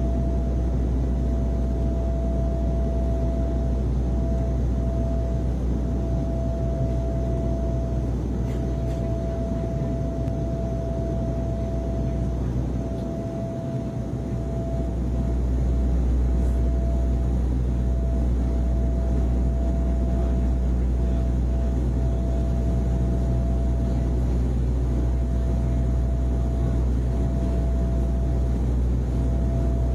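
Steady low drone of an airliner cabin in flight: engine and airflow noise with a thin steady whine above it. The low rumble dips briefly about halfway through.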